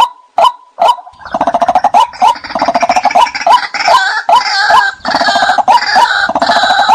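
White-breasted waterhen decoy call: a run of short, evenly repeated single notes, then from about a second in a loud, rapid chorus of croaking, pulsed calls that lasts to the end, as played to lure waterhens in.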